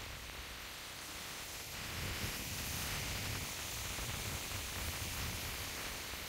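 Ocean surf washing and breaking over lava rocks: a steady rushing noise that swells about two seconds in.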